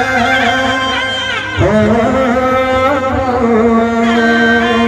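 Adivasi band playing timli dance music, loudly amplified through a stage sound system. A bending, gliding lead melody runs over sustained low notes, and about a second and a half in the music shifts with a quick swoop into a long held note.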